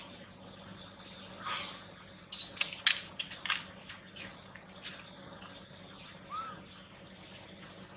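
Dry leaf litter crackling and rustling in a cluster of sharp crackles about two to three and a half seconds in, with one short squeak near the end.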